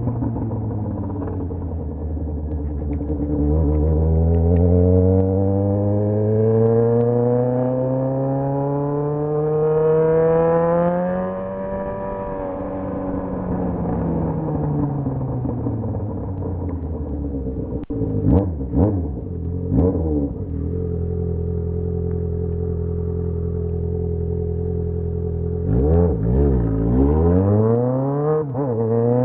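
Yamaha XJ6's inline-four engine revving: the pitch climbs slowly for several seconds, falls back, then holds steady. About two-thirds of the way in there are three quick throttle blips, and near the end more blips and another climb.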